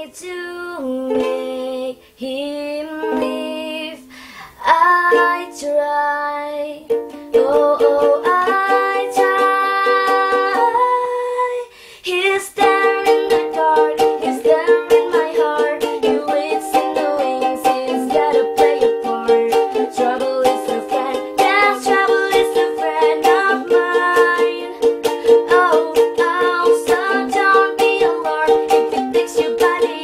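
Background music: a melody of held notes, changing about twelve seconds in to a busier passage with a steady beat.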